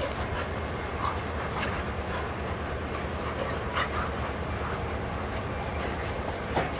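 A German Shepherd and a black puppy play-fighting, with short dog noises now and then, the sharpest one near the end, over a steady low background rumble.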